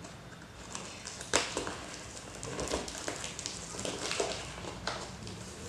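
Cardboard box being torn open by hand, its flaps and tape pulled and ripped: irregular crackling and tearing, with one sharper rip about a second and a half in.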